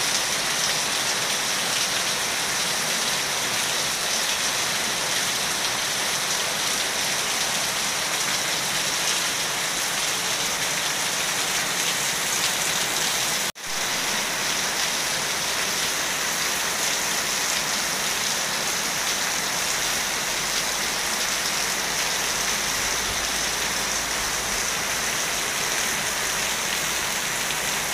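Steady rain falling on leaves, paving and the surface of a pool, an even hiss that breaks off for an instant about halfway through.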